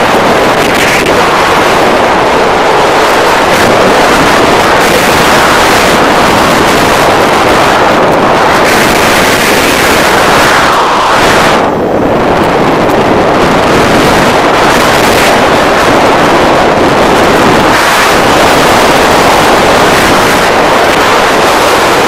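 Loud wind buffeting the microphone of a paraglider pilot's camera in flight: a steady rushing noise with one brief lull about twelve seconds in.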